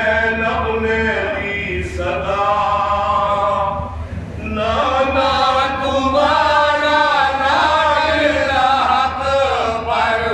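Group of men chanting a marsiya, an Urdu elegy, in unison without instruments: a lead reciter and the men around him hold long melodic lines. The voices thin out briefly about four seconds in, then swell fuller and louder, over a steady low hum.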